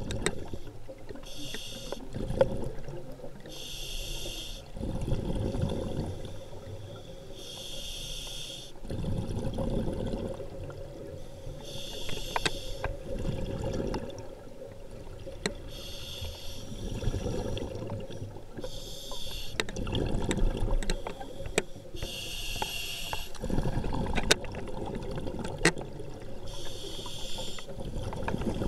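Scuba diver breathing through a regulator underwater: a short hiss on each inhale, followed by a burst of bubbling exhaust on each exhale. About eight breaths, one every three to four seconds.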